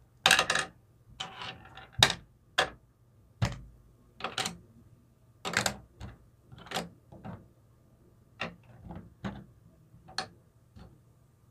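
Small plastic toy food pieces and dishes being picked up and set down on a plastic playset: a run of light, irregular clicks and taps.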